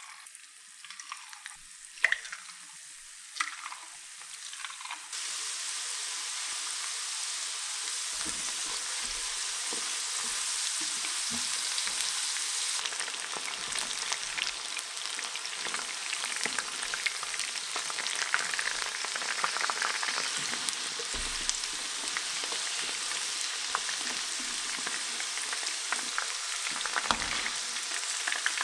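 Battered chicken pieces deep-frying in a pan of hot oil: a dense, steady crackling sizzle that starts a few seconds in after some clicks, with occasional low knocks as chopsticks turn the pieces.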